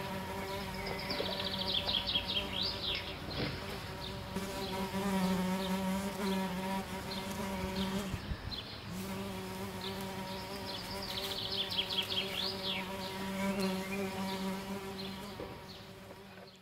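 Steady insect-like buzzing, a low hum with overtones, with a burst of high, rapid twittering chirps twice, about ten seconds apart. The sound fades out near the end.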